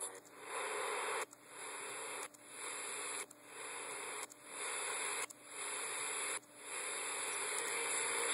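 FM radio static from an RDA5802 tuner chip stepping between stations: a steady hiss that drops out briefly about once a second as the chip retunes to each new channel, with no station coming in.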